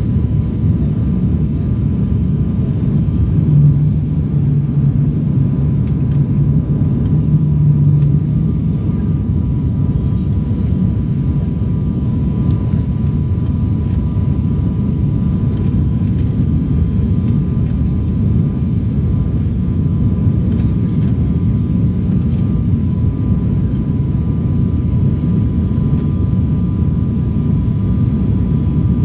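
Steady engine and airflow drone of a passenger aircraft heard inside the cabin, with a thin steady whine above it. A slightly stronger low hum rises for a few seconds about three seconds in, then settles back.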